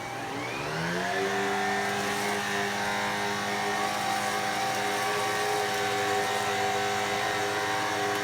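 Shark PowerFins WZ140 cordless stick vacuum running. About half a second in, its motor speeds up to a higher pitch, then runs with a steady whine.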